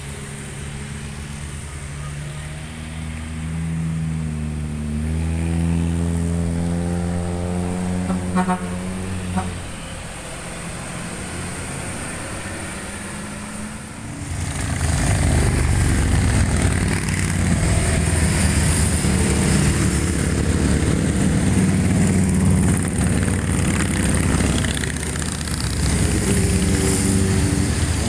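Motor vehicles climbing a hill road: an engine revs up with a rising pitch for several seconds, then drops away. About halfway through it gives way to louder, rougher engine and road noise that carries on.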